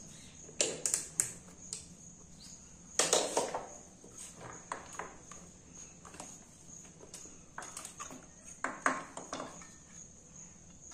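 Hands working loose the connectors and hoses on a motorcycle throttle body: scattered light clicks and rattles, with louder clatters about a second in, around three seconds and near nine seconds.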